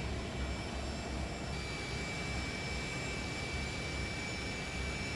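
Steady jet airliner noise on an airport apron: a constant rumble and hiss with a high whine held on one pitch.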